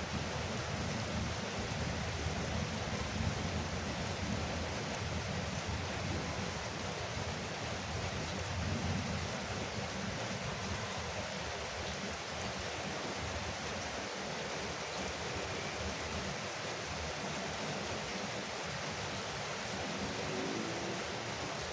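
Heavy rain drumming steadily on a porch roof, an even hiss with a low rumble underneath that is stronger in the first half.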